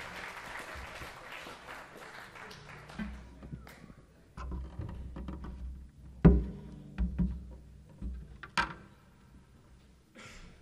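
Audience applause fading away, followed by a few scattered knocks and thumps, the loudest about six seconds in.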